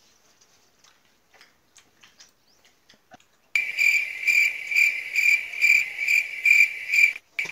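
Mobile phone ringing: a loud, high electronic ringtone pulsing about two and a half times a second, starting about three and a half seconds in and cutting off abruptly near the end. A few faint clicks come before it.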